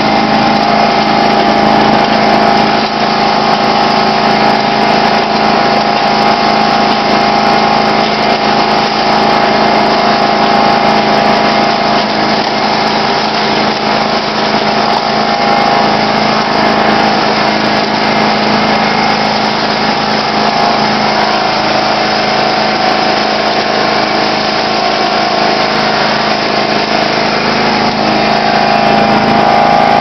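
John Deere LX176 lawn tractor's engine running steadily as the tractor pushes slush with its front blade.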